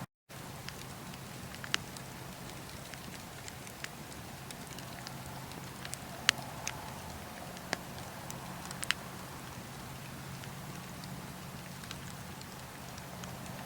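Wood fire burning in a fireplace: a steady hiss with scattered sharp crackles and pops, the loudest about six seconds in.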